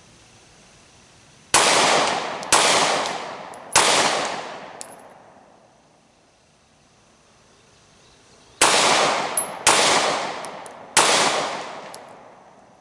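Glock 43 single-stack 9mm pistol fired in two strings of three shots, each string about a second between shots, with roughly five seconds between the strings: two Mozambique drills, two to the chest and one to the head. Each shot cracks sharply and rings out, fading over a second or so.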